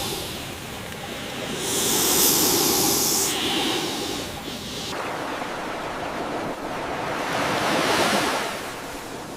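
Ocean surf washing in, a steady rush of water noise that swells and falls back, loudest about two seconds in and again around eight seconds in.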